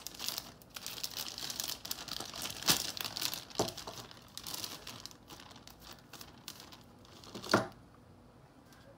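Clear plastic zip-lock bags crinkling as they are handled and tubing is drawn out of them, with sharp clicks about three seconds in and a louder one near the end.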